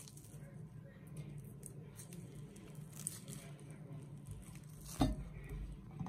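Dragon fruit being peeled by hand: faint soft tearing and squishing as the pink rind is pulled away from the flesh, over a steady low hum. About five seconds in a soft thump, as the peeled fruit is set down on a wooden cutting board.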